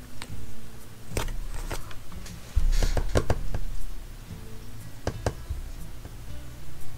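Paper and sticker sheets being handled on a desk while planner stickers go onto the page: scattered clicks and taps, with a dull knock about two and a half seconds in, over soft background music.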